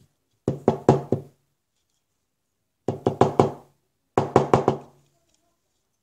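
A glitter container being tapped to shake out glitter: three quick bursts of four or five hollow knocks, each burst with a short pitched ring.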